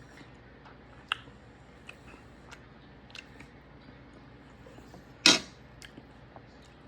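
Cutlery clicking against a plate while eating steak: a few light clicks and one much louder knock about five seconds in.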